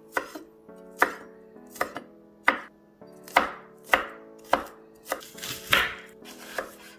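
Knife chopping on a cutting board: a dozen sharp, regular strokes, a little over one a second.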